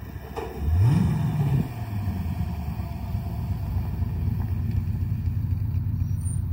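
Engine of an AC Cobra-style roadster revving once, its note rising steeply for about a second and then dropping back to a steady low running note as the car drives in.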